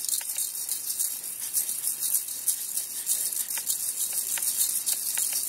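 Light, steady, high-pitched rattling of a hand-shaken rattle, kept up without a break.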